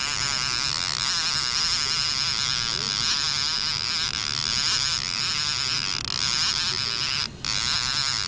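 Boat's outboard motor running steadily at trolling speed, a constant hum with a high whine over it; it cuts out briefly about seven seconds in.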